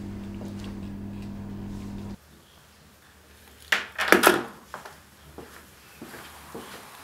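A low steady hum cuts off about two seconds in. Then a plastic corded telephone handset clatters down onto its cradle about four seconds in, hanging up the call, followed by a few small taps.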